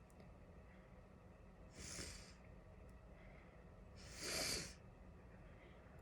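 Two stifled sneezes: short, hissy bursts of air through the nose about two seconds apart, the second louder and longer. They are brought on by chhinkni, a herbal sneezing powder.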